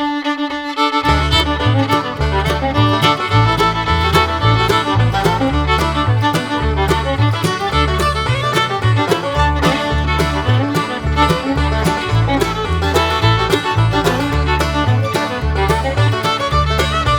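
Instrumental background music led by a fiddle, in a lively bluegrass-like style; a held note gives way about a second in to a quick tune over a steady pulsing bass line.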